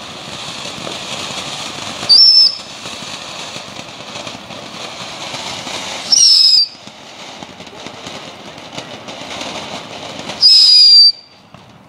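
Ground fountain firework spraying sparks with a steady hiss, broken three times, about four seconds apart, by a loud shrill whistle lasting about half a second that dips in pitch and then holds.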